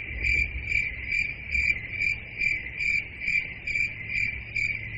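Crickets chirping: a steady high trill that pulses evenly a little over twice a second.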